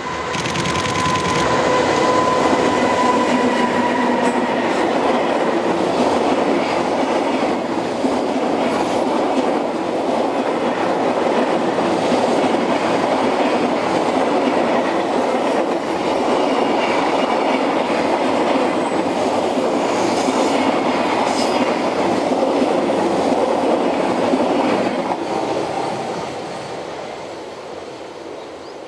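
JR Freight EH500 electric locomotive passing with a steady electric whine for the first few seconds. The long rumble and clickety-clack of its container wagons follows, with a thin, very high wheel squeal through the middle, and the sound fades away over the last few seconds.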